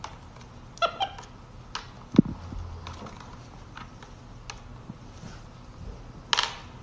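Pink slime squishing and popping as a capuchin monkey's fingers poke and squeeze it, in a few short separate squelches and clicks, the sharpest about two seconds in.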